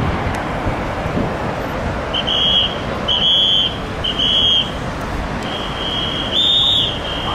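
Steady road traffic noise with a high-pitched, whistle-like tone sounding in short blasts about a second apart, then held longer and louder near the end.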